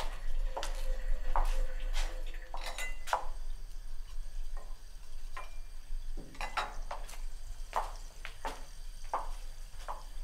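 Laboratory glassware clinking and knocking on a benchtop: irregular light knocks with a short ring, and twice a brief glassy ringing tone. A steady low hum runs underneath.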